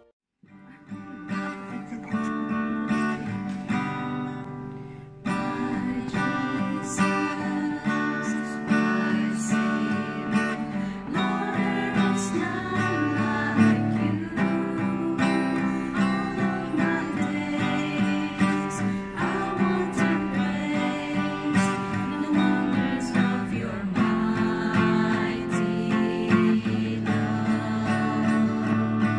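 Acoustic guitar strummed as accompaniment to a small group of women singing together. The guitar comes in just after the start, and the sound fills out about five seconds in.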